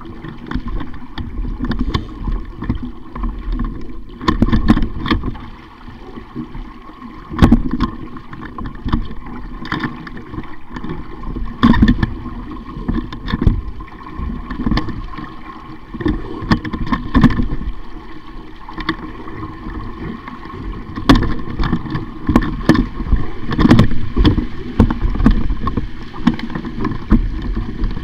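A sailing dinghy under way: water rushing and splashing against the hull, with a continuous rumble and frequent irregular thumps.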